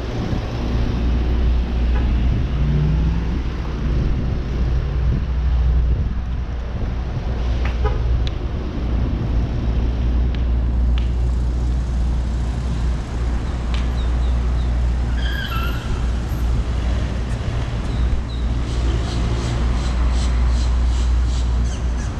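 City street traffic: a steady low rumble of car engines passing, with a short vehicle horn toot.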